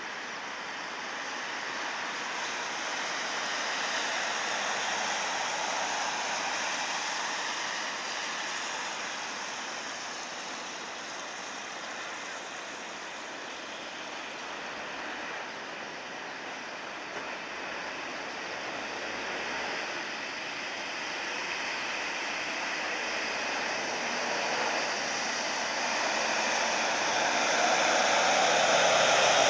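PW4000-series jet engines of a landing Boeing 777, a steady rushing roar that swells over the last few seconds as the airliner nears and reaches touchdown.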